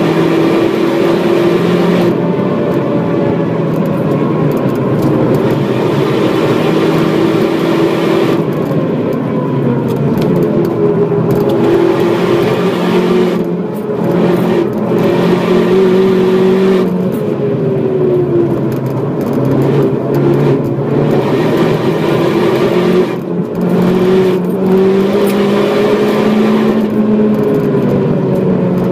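Opel Astra H OPC's turbocharged four-cylinder engine running hard at speed, heard onboard with wind and tyre noise. The engine note drifts up and down as the car lifts and accelerates through the bends, with two brief dips in level about halfway and three quarters of the way through.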